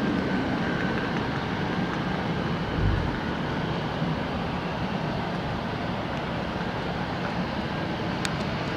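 Steady noise of jet aircraft engines running, with a brief low thump about three seconds in.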